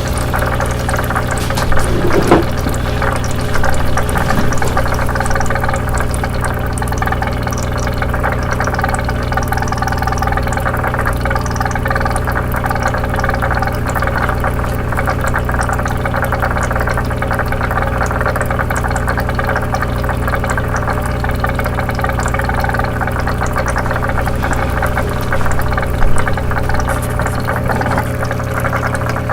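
Small electric motor of a toy bubble aquarium humming steadily, with water bubbling. A few brief louder sounds stand out, about two seconds in and near the end.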